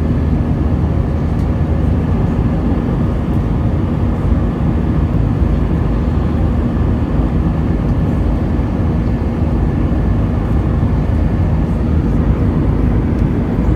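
Steady roar of an Airbus A320's turbofan engines, heard inside the cabin during the climb after takeoff, with a faint steady hum running under it.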